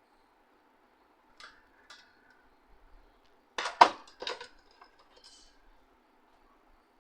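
Clattering and clicking of hard parts being handled, with a few light clicks and then a loud burst of knocks and clinks about halfway through.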